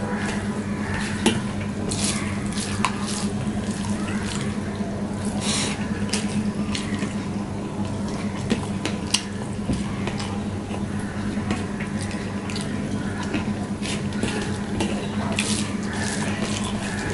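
Fingers mashing and mixing rice on a steel plate, making wet squelching sounds, with scattered short clicks of fingers scraping the metal, and chewing. A steady low hum runs underneath.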